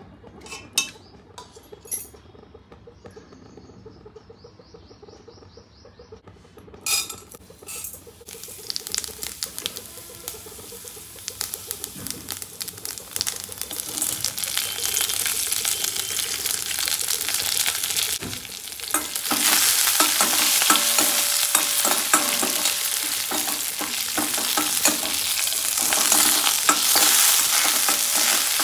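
A few light clicks of a knife against a steel pot, then a tempering of slit green chillies, dals and mustard seeds sizzling in hot oil in a steel pan. The sizzling starts about eight seconds in and grows loud and dense in the second half.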